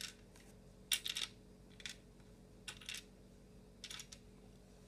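Plastic Lego bricks clicking and clattering as they are picked up and set aside, about five short clacks spread over a few seconds, the loudest about a second in.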